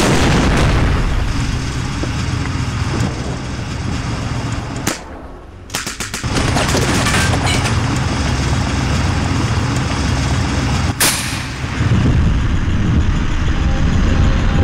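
A tank's main gun fires with a loud blast, then a steady low tank rumble carries on under scattered gunfire. There are sharp bangs about five and eleven seconds in, with a brief drop in level just after the first.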